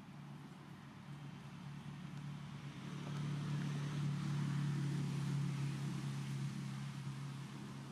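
A motor's low steady hum, growing louder about three seconds in and easing off near the end.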